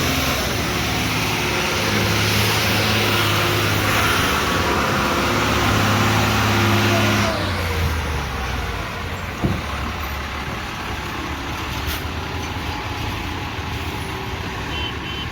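Heavy diesel engine running steadily, louder with more hiss for the first seven seconds or so and then settling lower, with one sharp click about nine and a half seconds in.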